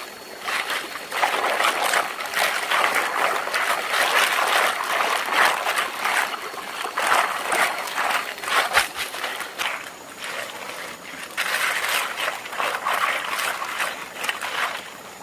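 Water splashing and trickling, a busy, uneven sound that swells and eases several times.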